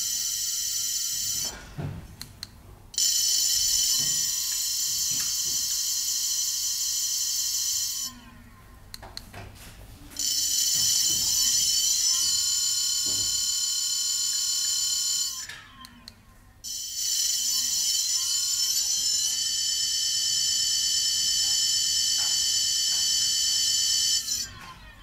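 16-inch brushless hub motor spinning up and down under throttle: a loud, high-pitched electric whine of several tones at once. The first run ends about a second and a half in, and it then runs three more times for five to seven seconds each, its pitch gliding up as it speeds up and down as it slows, with short gaps that hold only faint clicks.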